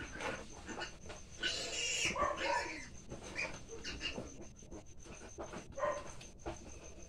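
Pigs calling in short, irregular squeals and grunts, the loudest about two seconds in.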